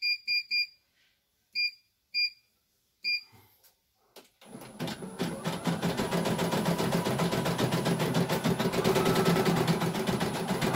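Short control-panel beeps from a CNY E900 embroidery machine as its speed is set, six beeps in the first three seconds. About four and a half seconds in, the machine starts embroidering, its needle running in a rapid, steady stitching rhythm that builds up over the first second.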